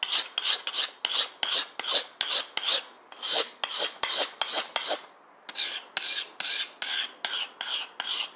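A steel knife blade stroked back and forth on a sharpening stone, a rhythmic scraping of about four strokes a second, with a short pause about five seconds in. The blade is being ground to take out nicks in its edge.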